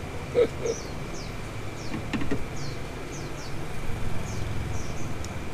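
Street ambience at a sidewalk eatery: a steady low traffic rumble, a bird chirping repeatedly in short, high, falling chirps every half second or so, and a few light clicks of chopsticks and spoons against bowls.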